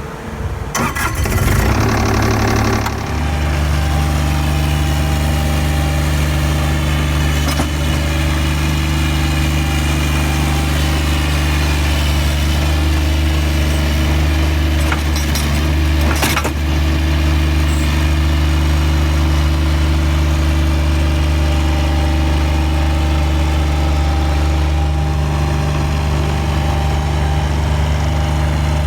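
A loader's engine cranking for about two seconds and catching, then idling steadily. A few sharp clicks or knocks come over the idle in the middle.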